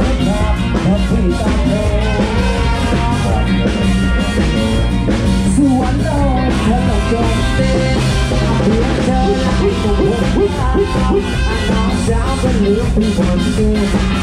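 Live band playing upbeat Thai ramwong dance music, loud and with a steady beat.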